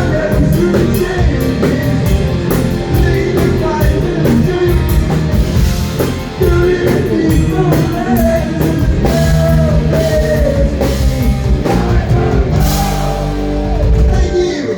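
Live heavy rock band playing: distorted electric guitar, bass and drum kit with singing. Near the end a cymbal crash and a held chord ring out.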